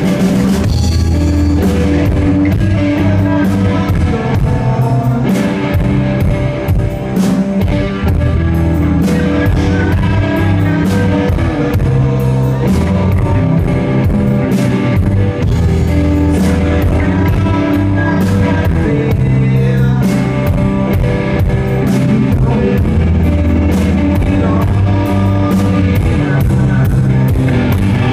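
Rock band playing a song live on electric guitar, bass guitar and drum kit.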